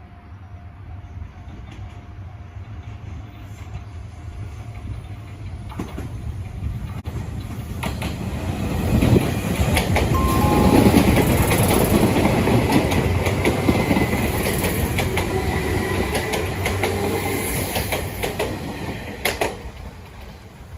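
A train passing through a level crossing. Its rumble builds over several seconds, stays at its loudest for most of the middle with wheel noise on the rails, and fades near the end.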